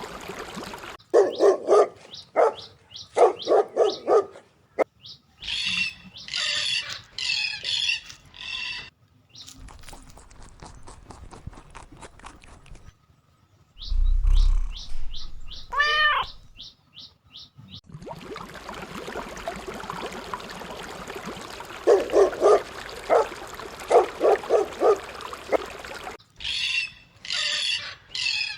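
A cut-together run of pet sounds: a dog barking in short bursts, alternating with birds chirping, plus a stretch of rapid clicking and a low thump with a rising-and-falling whistle near the middle.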